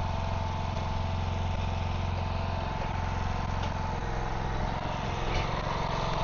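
A vehicle engine running steadily at idle, a low even hum that eases slightly about four seconds in.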